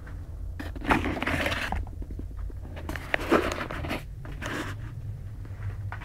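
Steady low hum of boiler-room machinery, with two bouts of crunching and scraping about a second in and around three seconds in, and a shorter one soon after.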